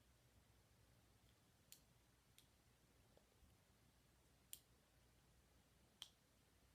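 Four faint clicks, well spaced, from small push-button switches being pressed on battery lights, against near silence.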